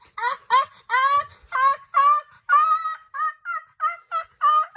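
A high-pitched voice making a quick string of about a dozen short "ah" sounds, rising slightly in pitch. This is the wind-up to a pretend sneeze that ends in "choo".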